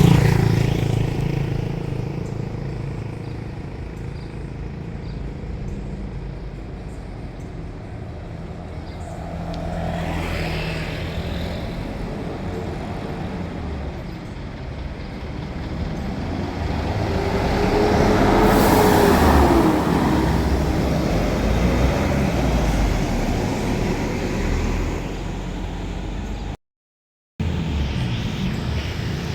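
Buses and other traffic passing on a road, engines running steadily. The sound swells twice, most loudly about two-thirds of the way through, as a vehicle passes close.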